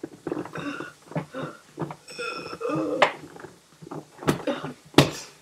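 Indistinct voice sounds, short and broken up, with two sharp knocks a little under a second apart near the end.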